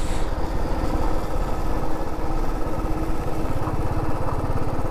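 Royal Enfield motorcycle engine running steadily while riding at road speed, a rapid, even exhaust beat.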